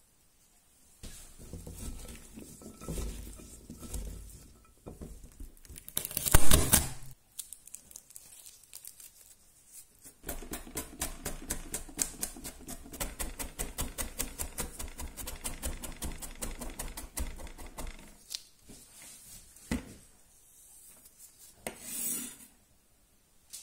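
Sliced bell pepper strips rustling as gloved hands spread them over the vegetables in a ceramic baking dish. A loud crunch comes about six seconds in. Later a chef's knife chops garlic on a plastic cutting board in quick, even strokes of about four to five a second, and near the end the blade scrapes the minced garlic together.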